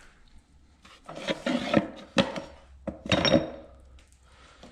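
Loose metal tooling being handled and shifted, scraping and clattering in two bursts about a second and three seconds in, the second ending in a short metallic ring.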